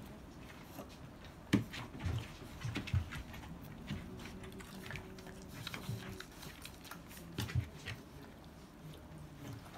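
Akita puppies suckling from their standing mother: irregular wet smacking and chewing sounds with soft thumps and shuffles of paws, one sharper knock about a second and a half in.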